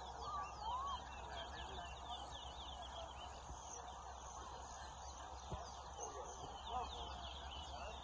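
Caged towa-towa finches singing competitively, a fast stream of short high twittering chirps with a few lower whistled notes about half a second in.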